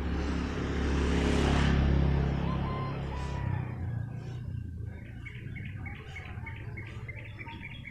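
Motor scooter riding past close by, its engine loudest about two seconds in and fading away by about four seconds. After it, a bird chirping, a quick series of short high calls.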